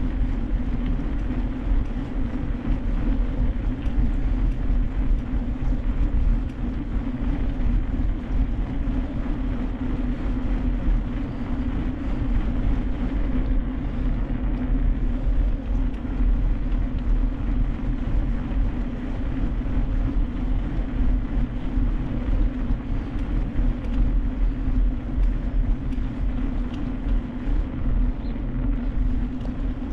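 Steady rumble of wind on the microphone and tyres rolling over the trail on a moving mountain bike.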